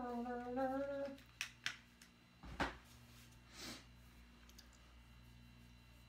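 A woman humming a short tune for about a second. A few small clicks and a louder tap follow, then a short soft rush of breath-like noise, then only quiet room tone with a faint low hum.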